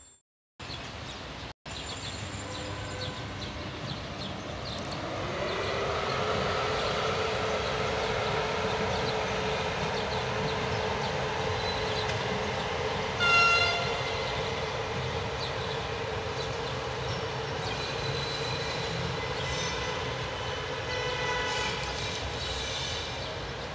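Electric locomotive running past on the tracks, its steady humming whine rising in pitch about five seconds in and then holding. About halfway through, a single short horn blast.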